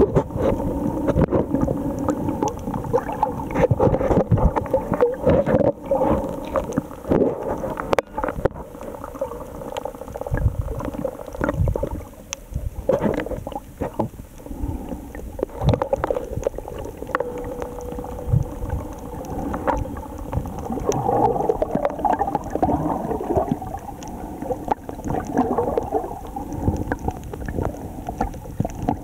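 Muffled underwater noise recorded by a submerged camera: a murky, gurgling wash of water sound, broken by frequent sharp clicks and knocks.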